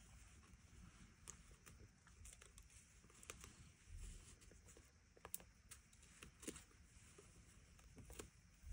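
Near silence with faint, scattered clicks and taps of papercraft handling: a sheer ribbon bow and cardstock being moved and pressed into place with a pick tool on a craft mat.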